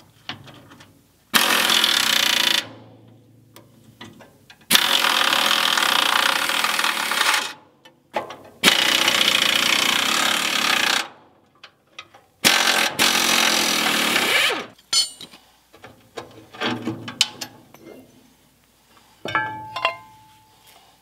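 A handheld power wrench runs in four bursts of one to three seconds each, loosening fasteners on an old cement mixer's gear housing. Scattered metal clinks follow, and a short metallic squeal comes near the end.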